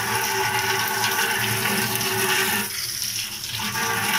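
Tap water running in a steady stream into a stainless steel sink, splashing on the steel as fresh coriander is rinsed under it. The rush thins briefly about three seconds in.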